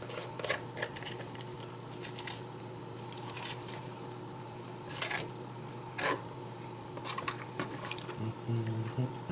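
Raw chicken being cut apart with a small Byrd Finch knife: wet squishing of flesh and skin, with scattered clicks of the blade against bone and the cutting board, two louder ones about five and six seconds in. A steady faint hum runs underneath.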